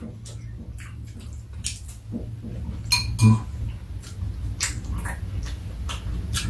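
Metal spoons clinking and scraping against ceramic bowls in scattered light clicks. One brighter ringing clink about three seconds in is the loudest moment. A steady low hum runs underneath.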